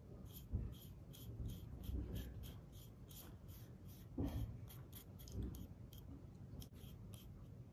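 Stiff paintbrush dabbing and scrubbing black acrylic paint into a pink insulation-foam wall, a run of short, faint scratchy strokes about three a second with a few soft handling bumps.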